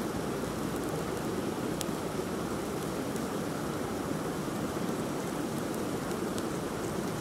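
Steady rushing of flowing water, with a few faint crackles as a small fire of dry grass and twigs catches.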